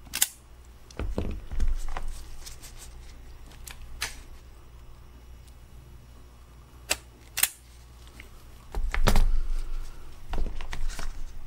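Hand wire strippers clicking as they close on and strip insulation from a thin test-lead wire, with scattered small knocks of tool handling. A louder clatter comes about nine seconds in, and another near the end.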